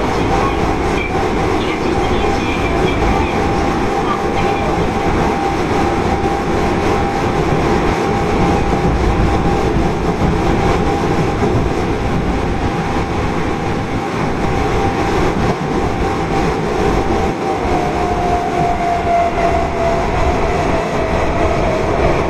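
Osaka Metro Tanimachi Line 22 series subway car (Hitachi GTO-thyristor VVVF traction equipment) running in the tunnel, heard from inside the car. There is a steady loud rumble of wheels on rail, with a thin steady whine that drops slightly in pitch over the last few seconds.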